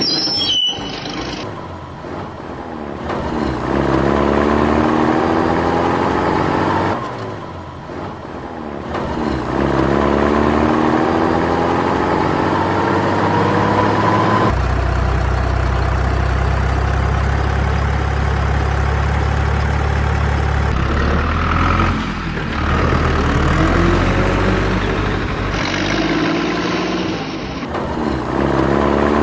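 Heavy vehicle engine sounds in spliced segments with abrupt cuts: engines revving up repeatedly in rising runs, and a deep steady engine drone in the middle stretch.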